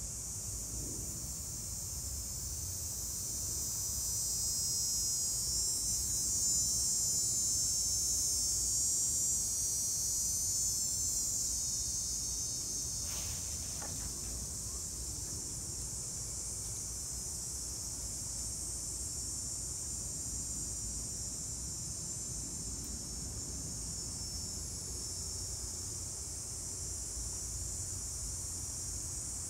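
A steady, high-pitched insect chorus, louder for several seconds in the first half and then settling, over a faint low rumble. A brief rustle comes about halfway through.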